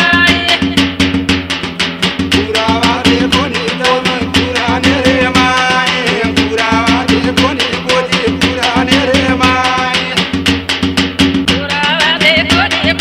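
Banjara holi folk song: a fast, steady beat on a dapda frame drum with a melody over it.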